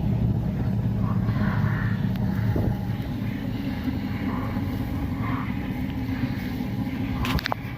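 A raised car wheel spinning, with a steady low rumble from the hub as the wheel is checked for a worn wheel bearing. A few sharp clicks come near the end.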